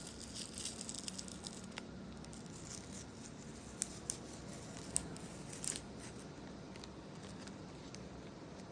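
Light handling noises: a run of small crinkly ticks, then four sharp separate clicks, over a faint steady low hum.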